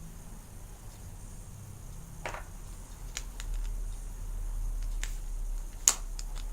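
A few light clicks and taps of nail-stamping tools being handled, spaced a second or so apart, the sharpest near the end, over a faint low hum.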